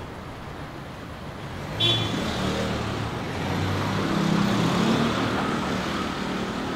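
A motor vehicle passing on the street over steady traffic noise: its engine swells from about two seconds in, starting with a short high squeak, peaks past the middle and eases off near the end.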